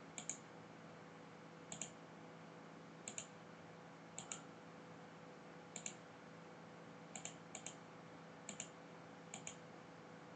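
Computer mouse clicks, about nine in all, each a quick double tick like a button press and release, spaced roughly a second or so apart, over a faint steady electrical hum.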